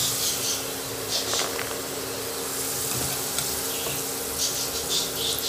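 Potato cubes deep-frying in hot sunflower oil: a steady sizzle with crackling spurts that come and go.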